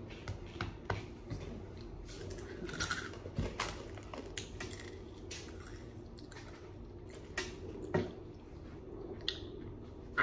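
A child chewing food close to the microphone: scattered wet mouth clicks and smacks, a few louder ones about three and eight seconds in.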